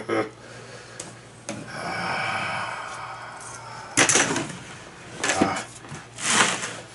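A blade slicing through the seal on a cardboard RC kit box, a scratchy cutting noise lasting a couple of seconds, then three short, sharper cardboard scrapes as the box lid is worked loose.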